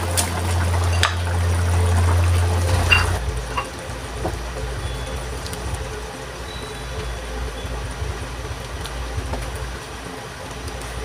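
Wooden spatula scraping liver spread out of a glass jar and knocking against the jar and wok a few times, over a steady low hum that stops abruptly about three seconds in. After that, the spatula stirs through the simmering caldereta sauce in the aluminium wok.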